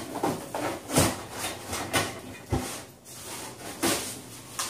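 Cardboard packaging rubbing, scraping and knocking as a shipping box is unpacked by hand, with a few sharper thumps scattered through.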